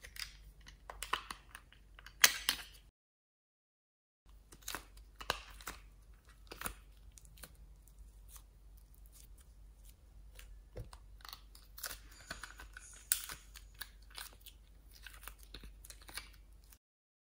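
Close handling of a plastic compartment case and soft modelling clay: scattered small plastic clicks and crackles as the lid is worked and clay pieces are pried out, with one sharper click a little over two seconds in. Twice the sound drops out to dead silence for about a second.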